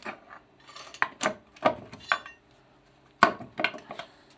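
Hand tools clinking and knocking on the cast front timing cover of a Mercedes M102 engine as its bolts are undone: a string of irregular metallic clinks, the loudest about three seconds in.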